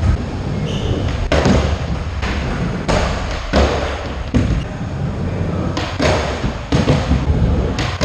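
Skateboard wheels rolling on a hard skatepark floor with a steady low rumble, broken by about ten sharp clacks and thuds of a board striking the floor and a wooden box.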